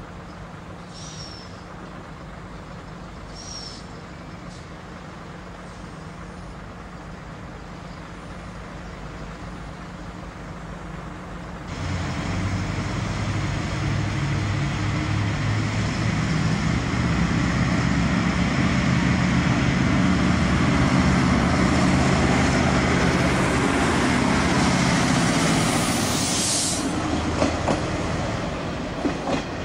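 V/Line Sprinter diesel railcar: a low engine hum, then about twelve seconds in a much louder diesel drone as the railcar comes through, with wheels clicking over rail joints near the end.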